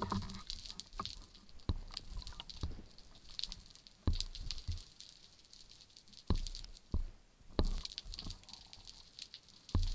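Sea water sloshing and slapping around an underwater camera at the surface, with irregular dull knocks about every second.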